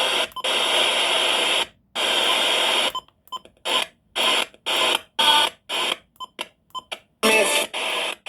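Radio receiver hissing with static that cuts in and out abruptly. It comes in long stretches at first, then in short, rapid bursts through the middle. A faint, broken voice fragment comes through the static near the end.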